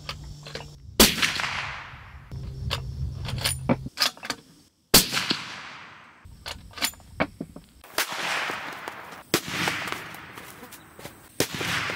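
Suppressed .300 Winchester Magnum bolt-action rifle firing several shots. Each is a sharp crack followed by a long echo that dies away over a second or two, with smaller clicks in between.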